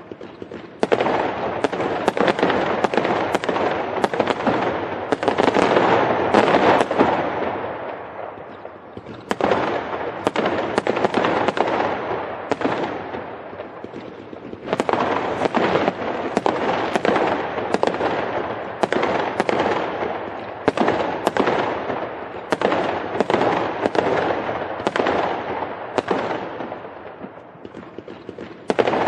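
Fireworks going off in dense volleys of rapid bangs and crackles. Each volley starts abruptly and fades over several seconds before the next begins, with new volleys about a second in, about nine seconds in, about fifteen seconds in, and again at the end.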